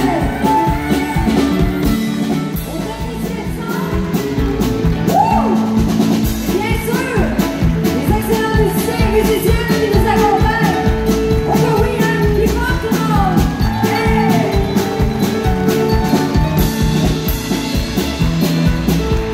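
Live country music played through a PA: a woman singing into a microphone over a band with electric guitar, fiddle and drums keeping a steady beat.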